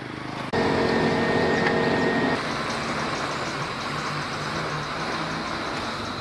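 Road vehicle noise: a loud, steady pitched drone starts suddenly about half a second in and breaks off about two seconds later, leaving a quieter, even outdoor rumble.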